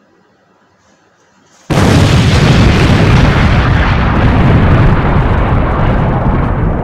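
Faint room tone, then a little under two seconds in a sudden, very loud rumbling blast that carries on and slowly fades: an explosion-like sound effect on an animated outro.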